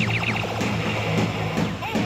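Background music, opening with a rapid run of short falling electronic chirps over a steady low hum.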